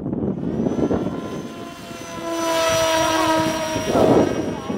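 Electric motor and propeller of a small FPV flying wing making a low pass: a steady whine that swells as it comes close and drops away shortly before the end. Wind rumbles on the microphone underneath, with a gust near the end.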